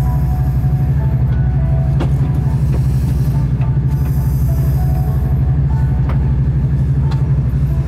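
Passenger train running, heard from inside the carriage: a loud, steady low rumble with a few faint clicks.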